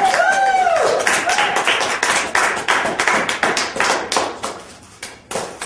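Audience applause, dense irregular hand claps, with a whooping cheer at the very start. The clapping thins and dies down about four to five seconds in, then picks up again near the end.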